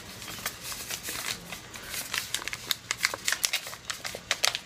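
Brown paper rustling and crackling as a small wrapped package is handled and unwrapped by hand: an irregular run of sharp crackles that grows busier about halfway through.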